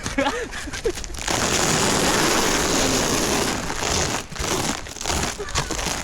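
Steady scraping hiss of a slide over packed snow, beginning about a second in after a brief voice, then turning rougher and broken near the end.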